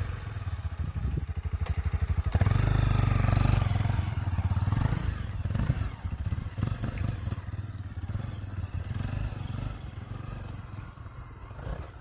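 2016 Honda CRF250L's single-cylinder four-stroke engine putting at low revs, then revving up sharply about two seconds in as the bike pulls away. The engine note then fades steadily as the bike rides off.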